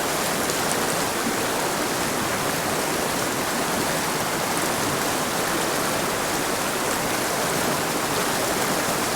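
Small mountain creek rushing and splashing over rocks, a steady water noise with no change.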